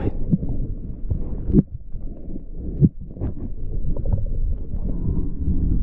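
Muffled underwater sound heard through a camera's waterproof housing: a low rumble of moving water with knocks and bumps from the camera being handled, the loudest about one and a half seconds in and again near three seconds.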